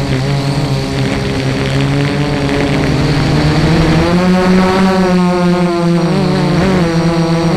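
FPV quadcopter's electric motors and propellers whining as it flies, the pitch shifting with the throttle and stepping up about halfway through.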